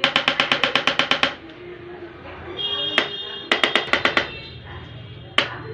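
Electric chiropractic adjusting instrument firing rapid trains of sharp clicking impulses, about ten a second. There are two bursts of roughly a second each, with a single sharp click between them and another near the end.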